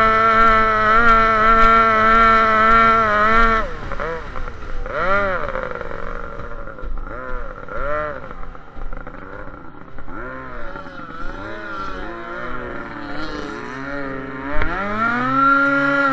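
Racing boat's engine heard from on board, running at a steady high pitch. About three and a half seconds in the revs drop and then swing up and down unevenly. A sharp knock comes a little before the end, after which the revs climb back to a steady high pitch.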